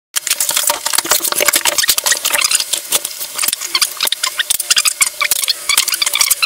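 Plastic wrapping and packing material crinkling and rustling in a dense run of crackles as a computer monitor is lifted out of its cardboard box and unwrapped. It starts suddenly.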